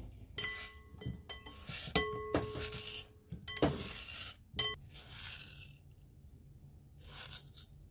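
A glass mixing bowl clinking and ringing as a knife and slices of peeled mango knock against it: about seven sharp clinks in the first five seconds, several leaving a clear ringing tone, then it goes quiet.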